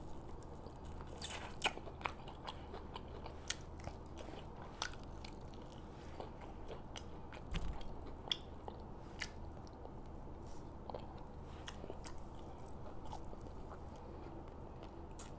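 Close-up eating sounds: biting and chewing fried chicken, with scattered small crunches and wet mouth clicks.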